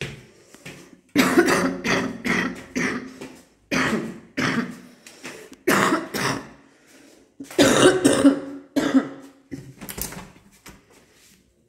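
A person coughing hard in a long run of coughs, with some throat-clearing. It starts about a second in, and the coughs come in irregular clusters until near the end.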